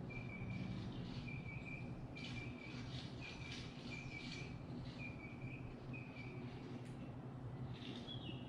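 A small bird chirping, a short high note about once a second, with the last notes higher and dropping in pitch. A faint steady low hum runs underneath.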